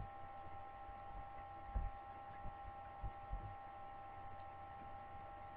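Steady electrical hum and faint high whine from the recording setup, broken by a few soft low thumps about two and three seconds in.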